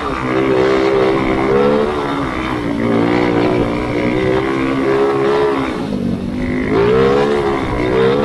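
Grass kart engine running hard, its revs rising and falling with the throttle. It eases off briefly about six seconds in, then climbs again.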